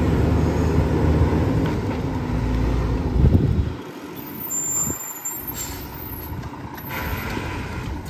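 1997 Mack RD rear-loader garbage truck's diesel engine and hydraulics running loud under packer load for about three and a half seconds, then dropping back suddenly to a quieter idle as the compaction cycle finishes.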